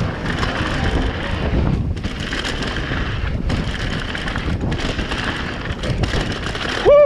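Wind rushing over a mountain bike rider's action camera microphone, with tyres rolling over the dirt trail and the bike rattling on a fast stretch. The noise dips briefly a few times. Right at the end the rider gives a short shout that rises and falls in pitch.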